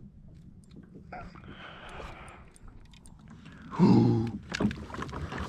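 Water noise and small knocks around a kayak while a hooked fish is fought, with a short loud vocal exclamation about four seconds in.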